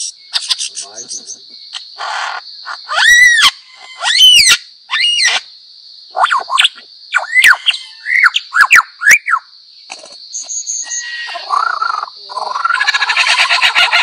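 Superb lyrebird singing its mimicry song: loud up-and-down arching whistles, then a run of separate swooping notes, then a burst of rapid chattering near the end.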